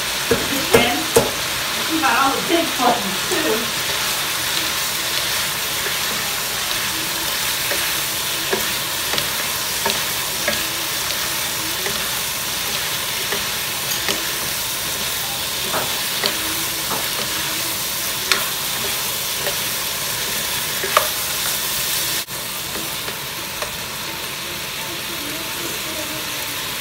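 Beef and broccoli sizzling in a nonstick wok as they are stir-fried: a steady frying hiss with scattered clicks and scrapes of the spatula and wooden spoon against the pan. The sizzle drops a little about 22 seconds in.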